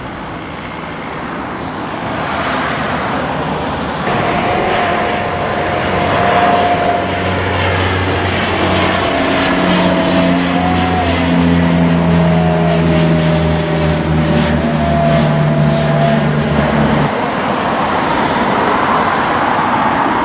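Twin-engine turboprop airliner climbing overhead after takeoff: engine and propeller drone building over the first few seconds into a steady droning with a higher whine, then stopping abruptly about three seconds before the end.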